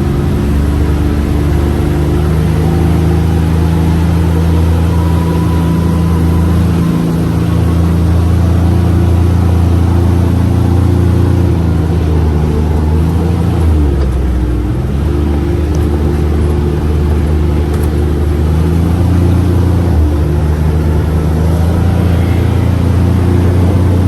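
UTV engine running under way, its pitch shifting up and down several times as the speed changes, with a brief dip and pick-up about fourteen seconds in.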